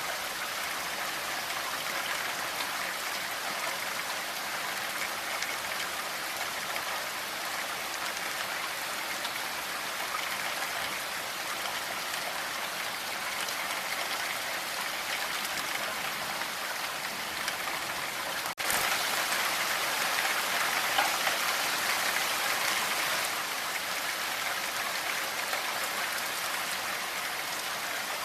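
Steady rain falling, an even hiss of drops. About two-thirds of the way in it cuts out for an instant, then comes back a little louder for a few seconds before settling to its earlier level.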